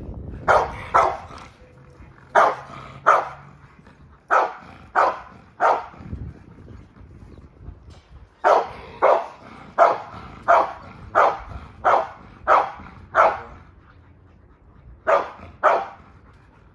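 A dog barking in bursts of two to eight barks, about one and a half barks a second, with short pauses between the bursts.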